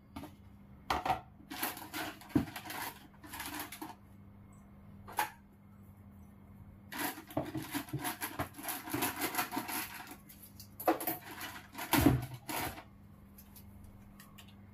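Flour being scooped by hand from a plastic storage tub into a steel bowl: short bursts of rustling and scraping with light knocks against plastic and steel, and a louder knock toward the end. A faint steady hum runs underneath.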